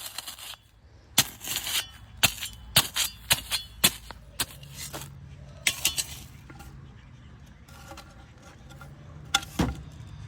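An irregular string of sharp knocks and cracks, about a dozen in all, most of them packed into the first few seconds with a few more later. A low steady hum comes in partway through.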